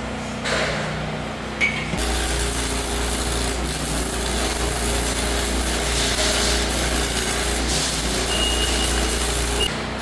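A metalworking tool starts about two seconds in, runs steadily on steel with a rough, rasping hiss over a low hum, and stops just before the end.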